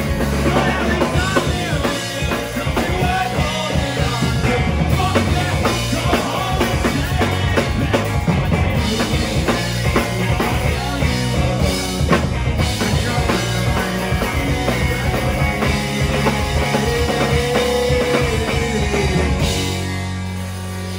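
A live rock band playing loud: electric guitars, bass and a drum kit. Near the end the drums stop and a chord is left ringing.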